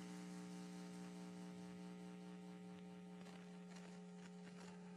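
Faint, steady electrical mains hum: a low buzzing tone with a ladder of evenly spaced overtones above it, unchanging throughout.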